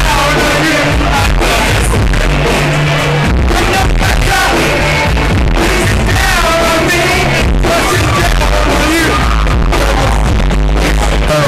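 Loud dance music with a heavy bass beat and a singing voice, heard over a club's sound system.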